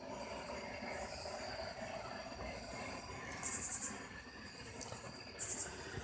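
Night insects calling: a steady high trill under repeated high-pitched pulsed buzzes, two of them much louder, a little past halfway and near the end, over a faint low background hum.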